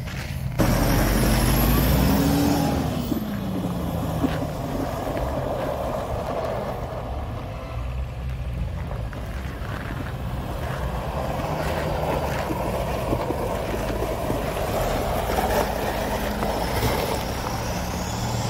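Toyota Land Cruiser Prado SUV driving on a frozen lake. Its engine rises and falls in pitch about two seconds in, then runs on steadily under the noise of its tyres on the ice.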